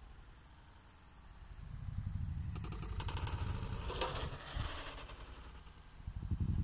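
Mountain bike rolling over a dirt pump track, with low wind rumble on the microphone building after about a second and a half, and a fast, fine ticking from a coasting freewheel hub.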